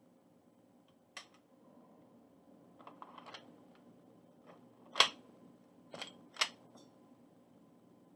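Sharp metallic clicks as a SIG Sauer P226 X-Five CO2 BB pistol is handled and worked while it is checked for a jammed BB. There is one click about a second in, a small cluster around three seconds, the loudest about five seconds in, and two more a second or so later.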